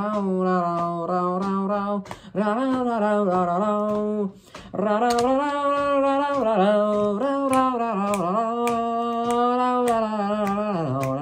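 A man's voice carrying a slow melody in long held notes, with brief breaks about two and four and a half seconds in. Sharp clicks keep time underneath.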